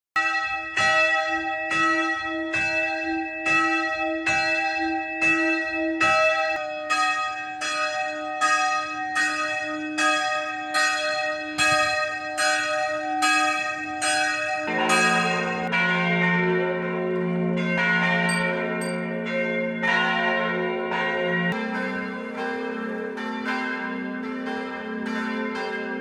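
Church bells ringing. One bell starts out of silence, striking at a steady pace of about one and a half strokes a second. Deeper bells join around the middle and the sound thickens into a fuller peal.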